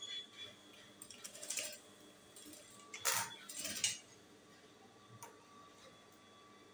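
Short bursts of rustling and light clicks from stiff crinoline and fabric being handled at a sewing machine as a hem seam is finished, the loudest about three seconds in and a small click about five seconds in.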